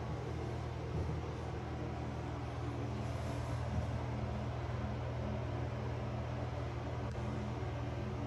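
Steady low droning hum with no change in level, the kind made by a running motor or fan.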